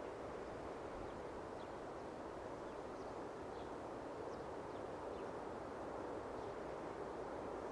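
Quiet outdoor mountainside ambience: a steady soft hiss of background noise with a few faint, short bird chirps scattered through it.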